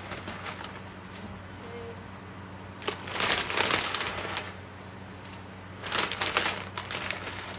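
Dry pancit canton noodles rustling and crunching as they are pushed into a pan and worked in, loudest in two bursts about three and six seconds in.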